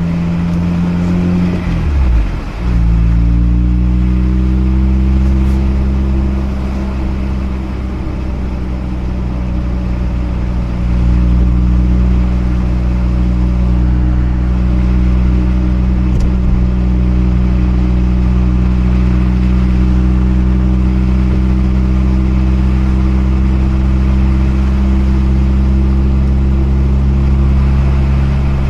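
Mazda RX-8's two-rotor Wankel rotary engine running steadily while the car drives along, its note briefly dipping and shifting about two seconds in before settling again.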